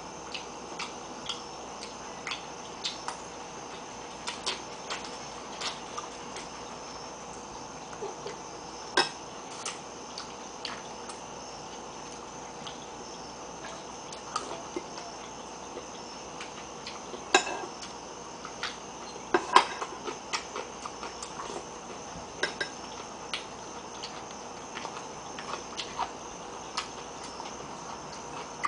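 Spoon and fork clinking against a soup bowl and plate as someone eats: irregular light clicks, with a few sharper ones about a third and two thirds of the way in, over a faint steady background hum.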